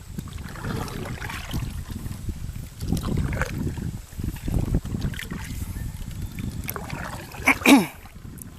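A small river boat under way: irregular rumbling water and wind noise. Near the end comes one short, loud sound that falls in pitch.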